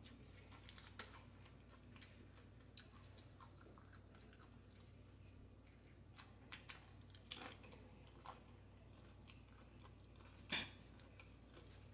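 Faint, close-up chewing and crunching of the tortilla chips in a taco salad: scattered small crunches and mouth clicks, with one louder crunch about ten and a half seconds in.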